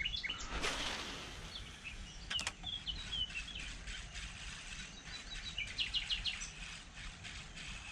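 Small birds chirping and singing, with a quick trill near the middle. A short rushing sound comes about half a second in, and two sharp clicks about two and a half seconds in.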